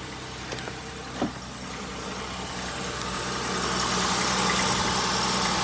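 2002 Acura MDX's 3.5-litre V6 idling steadily, heard at the exhaust where a new flex pipe and catalytic converter have just been fitted, with a couple of light clicks early on and the sound growing louder from about two seconds in. The new flex pipe is not leaking.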